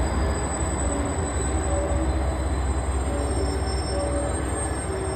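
Train at the platform: a steady low rumble, with short squealing tones that come and go.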